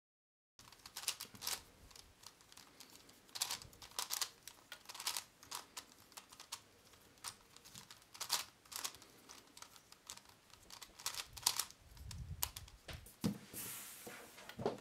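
Plastic twisty puzzle cube being turned by hand: a string of irregular, sharp plastic clicks and clacks as its pieces snap round. Near the end there is a low thump as the cube is put down.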